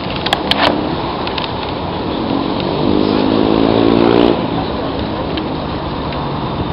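Steady rushing noise of riding a bicycle in street traffic, with a few sharp rattles about half a second in. A motor vehicle's engine note rises in pitch from just under three seconds in and breaks off a little after four seconds.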